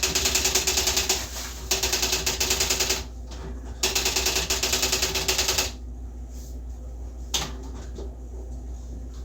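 Electronic typewriter printing a stored label from memory by itself: rapid, even runs of character strikes in three bursts with short pauses between. The strikes stop about two-thirds of the way through, and a single click follows.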